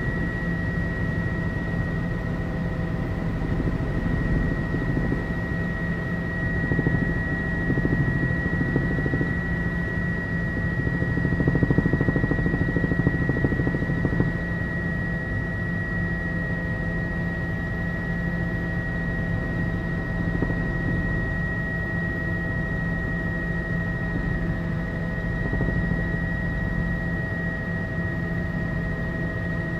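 Tour helicopter in steady cruise, heard from inside the cabin: a constant high whine over a dense low drone of engine and rotor.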